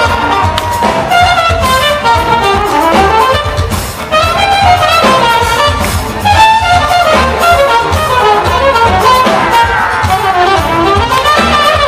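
Live brass-led funk band playing an instrumental passage: a trumpet leads with bending, gliding phrases over drums, electric bass, guitars and saxophones.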